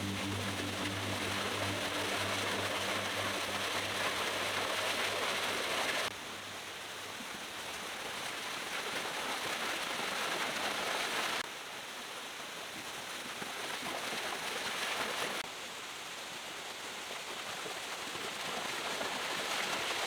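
Steady rushing of a waterfall, with abrupt drops and rises in level a few times where the shot changes.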